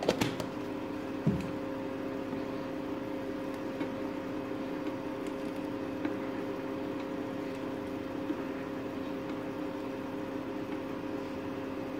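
Steady mechanical hum with a faint hiss, over which a plastic ladle stirring soup in a nonstick pan makes a few light knocks. The loudest knock comes just after a second in.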